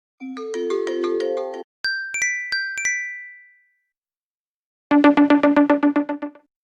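iPhone 6 stock ringtones playing as short previews one after another. First comes a quick run of mallet-like notes lasting about a second and a half. Then four bright bell dings that ring out, and after a pause a fast repeated-note pattern that stops suddenly.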